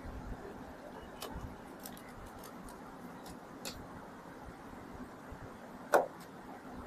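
Faint clicks and ticks of small screws being driven into a laptop's plastic bottom case with a precision screwdriver, then one sharp knock about six seconds in.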